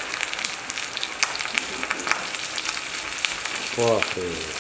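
Coated chicken pieces deep-frying in a wok of hot oil: a steady sizzle dotted with many small crackles and pops. A short voice sounds just before the end.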